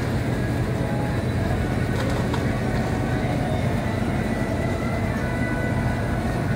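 Steady low hum of supermarket background noise beside the open refrigerated display cases.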